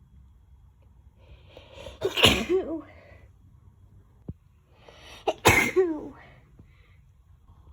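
A woman sneezing twice, about three seconds apart, in a sneezing fit. Each sneeze follows a breathy in-breath and ends in a voiced tail that falls in pitch.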